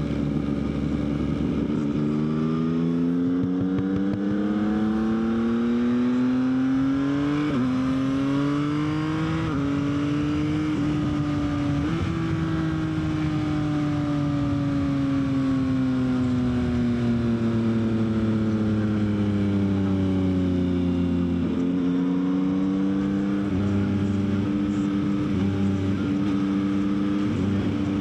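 Yamaha XSR900's three-cylinder engine under way, revs climbing and falling with the throttle and stepping sharply at each gear change: a climb with quick shifts about seven and nine seconds in, a long slow fall in revs, then a renewed climb with more shifts.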